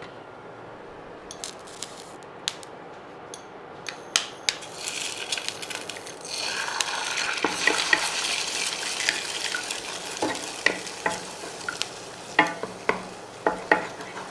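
A few sharp taps, then eggs sizzling as they hit hot coconut oil in a frying pan, the sizzle swelling about six seconds in. A spatula then stirs and scrambles them, tapping and scraping against the pan.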